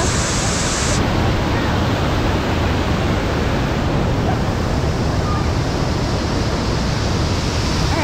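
A large waterfall rushing close by, a steady, loud wash of falling water.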